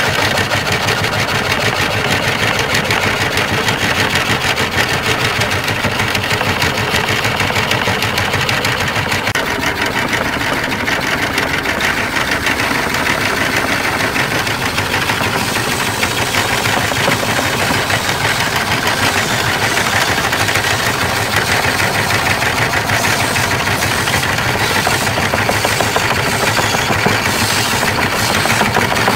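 A large woodworking machine running steadily, with a rapid pulsing rattle that holds for the whole stretch.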